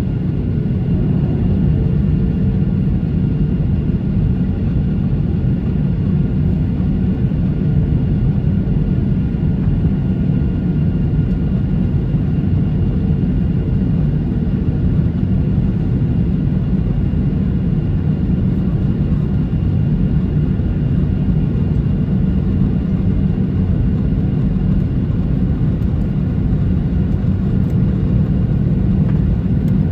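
Cabin noise inside a Boeing 737 taxiing onto the runway: a steady low rumble from the jet engines at low power, with a faint steady high whine.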